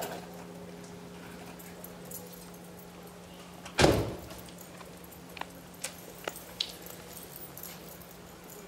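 A church bell's ringing dying away into a low steady hum after the peal has stopped. A single loud thump comes about four seconds in, followed by a scattering of light clicks and knocks.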